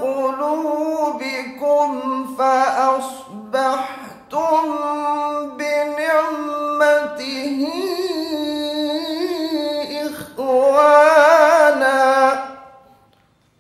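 A man's voice reciting the Quran in the slow, melodic tajweed style through a microphone, holding long drawn-out notes. The notes waver in a melodic ornament in the second half, grow loudest, then die away shortly before the end.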